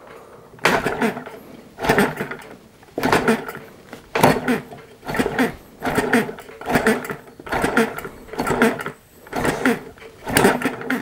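Small four-stroke petrol model hit-and-miss engine being flicked over by hand at its flywheel to start it: a short burst of sound about once a second, over and over, as each flick turns it over against compression.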